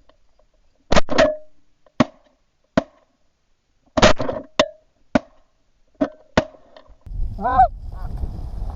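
Goose calls: a string of about nine short, sharp clucks at uneven spacing, then one longer honk near the end over steady background noise.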